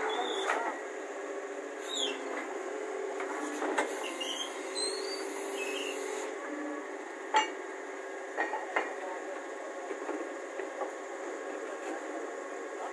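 Borewell drilling rig running with a steady mechanical drone, broken by several sharp metallic knocks, the loudest about seven seconds in.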